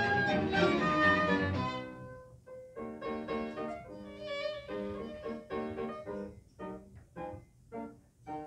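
Live chamber music: violins and cello with keyboard playing a full, loud passage that breaks off about two seconds in, followed by a quieter stretch of short, detached notes.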